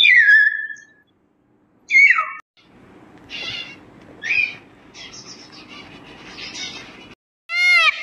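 A run of bird calls: two sharp falling whistles of a common hill myna in the first couple of seconds, then harsh cockatoo screeches and chatter, and near the end the start of a loud, repeated Indian peacock call.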